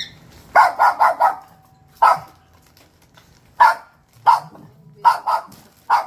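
Dog barking in short, sharp yaps: a quick run of four, then about six more spaced out.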